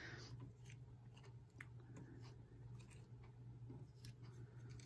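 Near silence: faint paper rustles and a few light taps as decorated cardstock tickets are handled, over a steady low hum.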